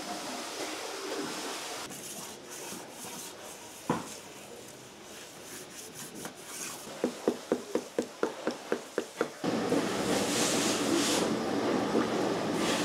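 Hand panning of gold concentrate in a metal pan: soft handling and dripping, a single knock, then a quick run of about a dozen rhythmic rubbing strokes at roughly five a second. About two thirds of the way in, water starts sloshing and splashing loudly as the pan is swirled in a tub of water.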